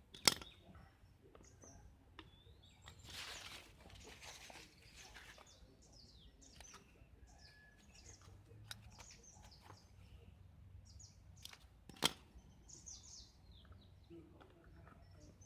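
Small birds chirping and tweeting faintly. Two sharp clicks cut through, one just after the start and one about twelve seconds in, with a soft rustle around three to five seconds.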